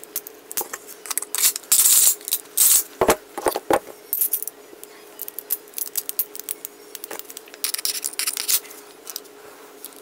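Handgun parts being reassembled: metal clicking and clinking as slides, guide rods and springs are handled and fitted, with longer metal-on-metal sliding scrapes about two seconds in and again later on. A faint steady hum runs underneath.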